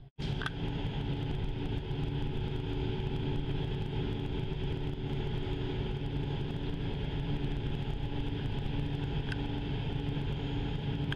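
A large diesel engine running steadily at low speed, a deep rumble with a hum that pulses about twice a second. It cuts in suddenly just after the start.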